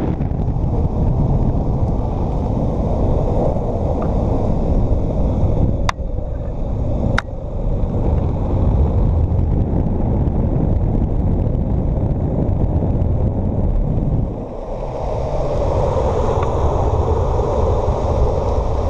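Downhill longboard run at speed: wind buffeting the pole-mounted GoPro's microphone over the steady rumble of urethane wheels rolling on asphalt. There are two sharp clicks about six and seven seconds in. The rumble dips briefly about fourteen seconds in, then comes back brighter.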